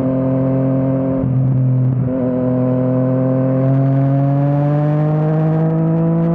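Yamaha MT-09 inline-three engine through an Akrapovič exhaust under way. Its note breaks briefly about one and two seconds in, as on gear changes. It then rises steadily in pitch as the bike accelerates.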